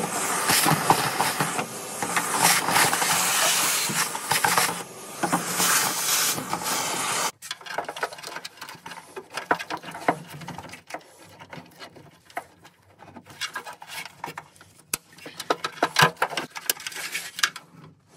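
Dense rustling and scraping from handling a car door's wiring harness for about seven seconds, then it stops abruptly. After that come scattered light clicks and sharp snaps as flush cutters snip cable ties and harness clips.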